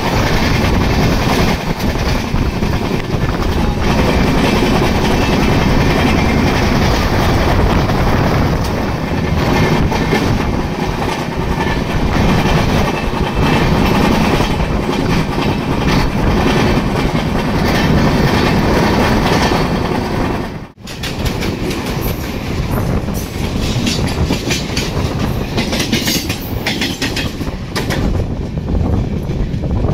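Express passenger train running, heard from on board: a steady rumble with wheels clattering over the rail joints. The sound breaks off for an instant about two-thirds of the way through, then carries on with more clatter.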